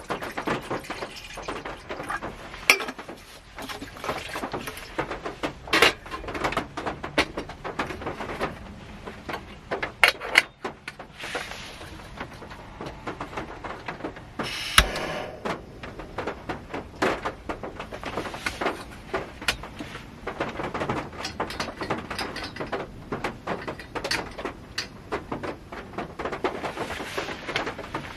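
Rain pattering on the roof of a Honda Step Wagon, heard from inside the cabin: many irregular sharp taps of drops over a steady hiss, with one louder knock about halfway through.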